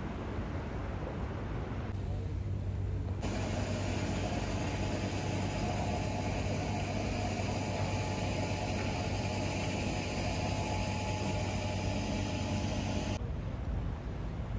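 A steady engine drone with a constant low hum and a faint higher whine; the sound fills out abruptly about three seconds in and drops back just before the end.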